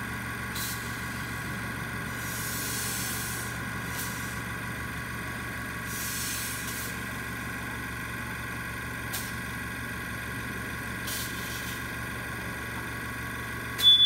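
Air compressor running steadily, feeding compressed air through a hose into a Strandbeest's bottle 'stomach', with two short hisses of air about two and six seconds in and a few light clicks. A short, loud, high-pitched squeal comes near the end.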